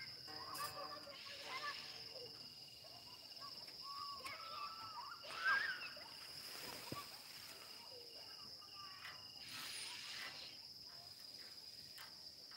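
Rural outdoor ambience: a steady high-pitched drone, with a few scattered chirps and short rustling noises, the loudest about five and a half seconds in.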